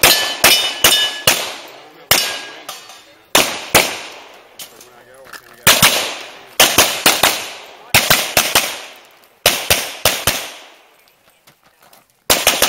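Handgun shots fired in quick strings of two to four, with gaps of a second or two between strings as the shooter moves to new positions. Each shot is a sharp crack followed by a short echo.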